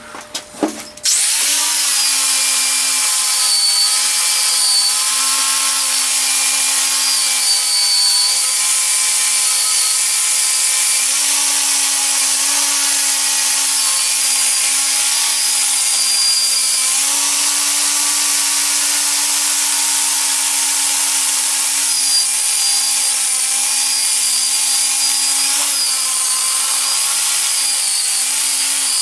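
Angle grinder with a wire wheel starting up about a second in and running steadily, stripping old paint off a cast-iron lathe bed. It gives a steady motor whine with a hiss over it, and its pitch shifts slightly now and then.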